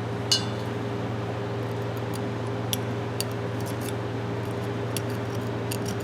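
Light metallic clicks and clinks from an adjustable wrench being handled and worked. The sharpest, with a brief ring, comes just after the start, and lighter ticks follow every second or so over a steady background hum.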